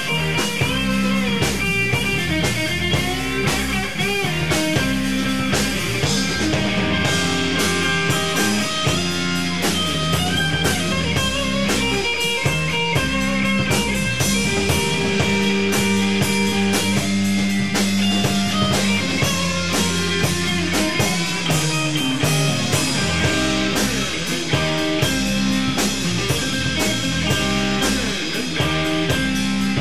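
Instrumental rock music: guitar lines over a steady drum-kit beat.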